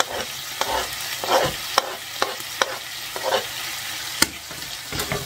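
Chopped aubergine frying and sizzling in a pan of sofrito as it is stirred in, with scraping sounds and a few sharp knocks of the utensil against the pan.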